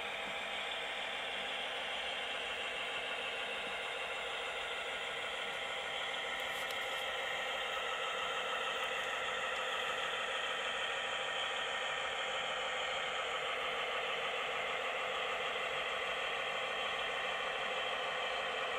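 HO-scale Piko model diesel shunter running slowly along the track while hauling a covered wagon: a steady mechanical whir with faint rattling, getting slightly louder about six seconds in.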